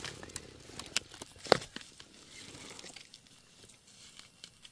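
Rustling and crackling of forest-floor litter being disturbed, with a few sharp snaps, the loudest about a second and a half in, then quieter rustling.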